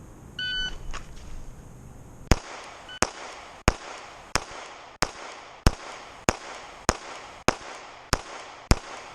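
A shot timer's start beep about half a second in, then a SIG P365 9mm pistol firing a steady string of eleven shots, about one every two-thirds of a second, starting about two seconds after the beep.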